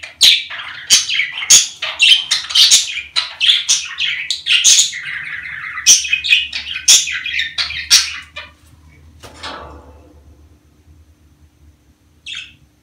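Budgerigars chattering and warbling in fast, dense chirps, the breeding-season chatter of a mating pair. The chatter stops about eight seconds in, a brief burst of noise follows, and then there is a single short chirp near the end.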